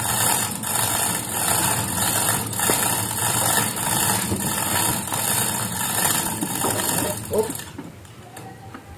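Winch on a speaker truss tower running steadily as it lifts a stack of sound-system speaker cabinets, stopping abruptly about three quarters of the way through.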